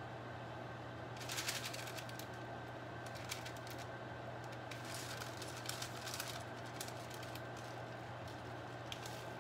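Silicone spatula scraping cooked isomalt out of a stainless steel saucepan: irregular bursts of scrapes and light taps against the metal, the biggest cluster about a second in, over a steady low hum.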